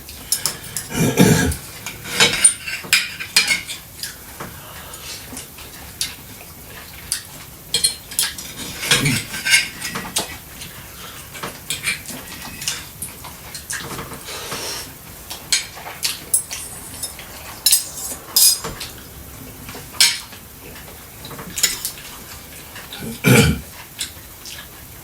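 Cutlery clinking and scraping against plates during a meal: many small irregular clicks, with a few heavier knocks about a second in, around the middle and near the end.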